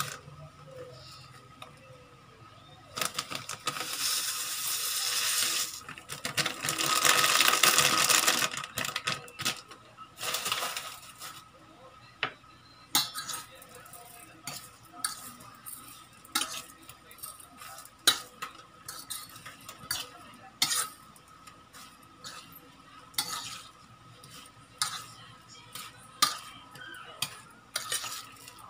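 Metal fork clinking and scraping against a stainless steel bowl in quick, irregular strokes while stirring sliced saba bananas in egg and crumbs. Early on there are two stretches of loud hissing noise, a few seconds each.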